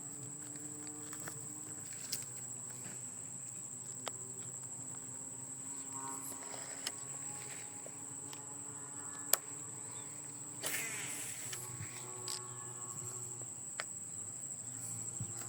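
Insects, crickets or similar, keep up a steady high-pitched trill, broken by a few sharp clicks, the clearest about nine seconds in.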